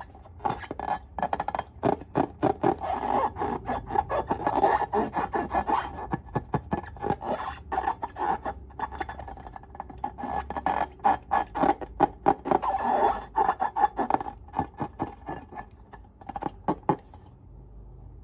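Slime being squished and worked by hand: a dense, irregular run of sticky clicks and crackles, pausing briefly twice and stopping near the end.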